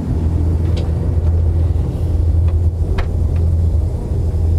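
Loud, steady low drone of the Antonov An-24's two Ivchenko AI-24 turboprop engines, heard from inside the cabin in flight. A few sharp clicks come through it, about a second in and again around three seconds in.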